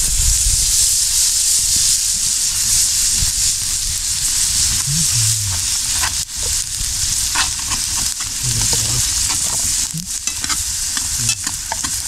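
Ground beef in enchilada sauce sizzling steadily in a skillet over a campfire, while a metal fork stirs it and clicks and scrapes against the pan.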